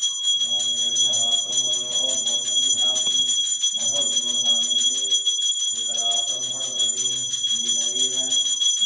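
Temple hand bell rung rapidly and without a break during the aarti lamp offering, its high ringing tones sustained throughout. Over it, a man chants a Sanskrit mantra to Shiva in phrases, pausing briefly about three and a half and five and a half seconds in.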